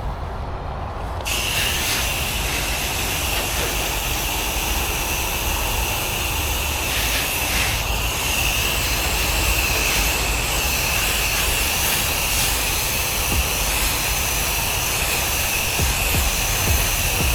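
Pressure washer spray gun releasing a jet of water with a loud steady hiss that starts suddenly about a second in, over the low rumble of the pressure washer's engine; the spray briefly dips twice midway. It is low-pressure downstream soft-wash spraying of chlorine mix.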